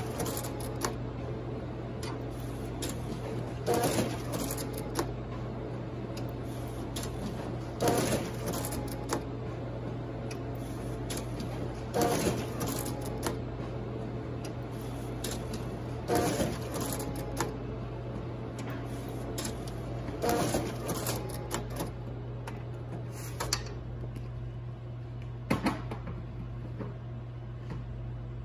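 Color printer running a print job, with a steady hum underneath and a short mechanical rush each time a sheet is fed out, about every four seconds. The sheet feeding stops about three quarters of the way in, leaving the hum and a few light clicks.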